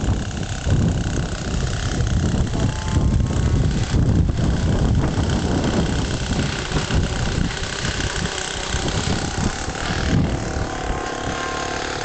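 Gusty wind buffeting the microphone, with the faint, distant whine of a model biplane's Super Tigre glow engine in flight, drifting up and down in pitch.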